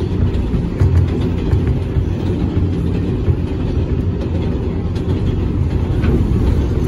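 New York City subway 7 train car running on elevated track, heard from inside the car: a steady low rumble of the wheels on the rails, with faint clicks over it.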